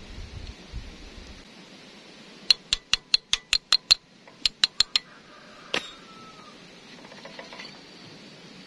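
Quick runs of sharp, ringing metal taps, about six a second: first a run of about nine, then a shorter run of five and a single tap. A hand tool is knocking on the metal oil-seal housing of a two-wheel tractor's wheel axle to loosen it off the shaft.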